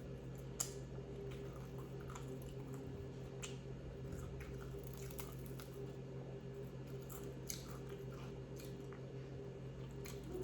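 A person chewing crunchy fried chicken with its skin: scattered small crunches and mouth sounds over a steady low hum.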